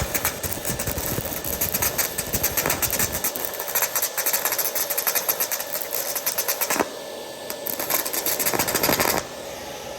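Stick-welding arc crackling and sizzling as an electrode burns in a Fitinhot handheld welder's rod holder, set to about 80. The arc breaks off about seven seconds in, strikes again briefly, and stops shortly before the end, leaving a steady hum.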